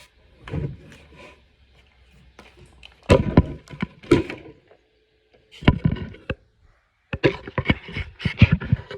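Knocks and clatter of hard, wooden objects being handled and set down, in several short clusters with quiet gaps between.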